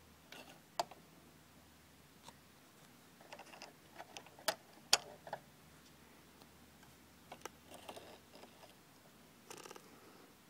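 Scattered light clicks and short rustles of a bobbin and its thread being handled in a sewing machine's drop-in bobbin case. The two sharpest clicks come close together a little before halfway.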